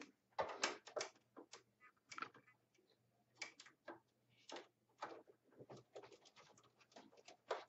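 Plastic mesh air filter of a Mitsubishi mini-split indoor unit clicking and tapping against the unit's plastic housing as it is fitted back into place: a string of light, irregular clicks.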